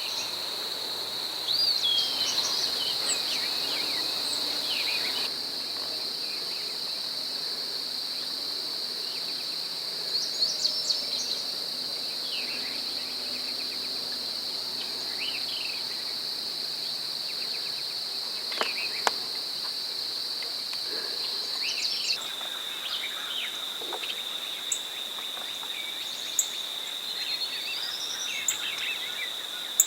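Steady, high-pitched insect chorus, with songbirds giving scattered short chirps and calls over it and a rising whistle near the end. A few sharp clicks stand out, and the drone steps slightly lower about two thirds of the way through.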